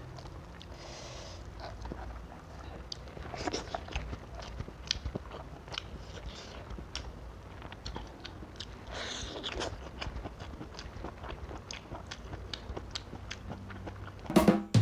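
Close-miked eating sounds: chewing, mouth smacks and scattered soft clicks as fried tilapia is torn apart by hand and eaten. A brief loud burst comes just before the end.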